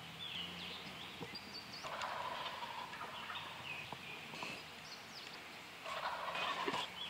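Wild turkey gobbler gobbling twice, a rattling call about two seconds in and again about six seconds in.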